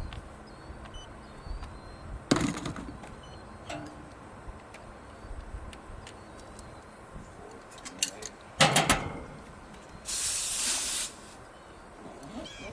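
A few knocks and clatters, then a loud, steady hiss of pressurised gas escaping for about a second near the end, cutting off sharply.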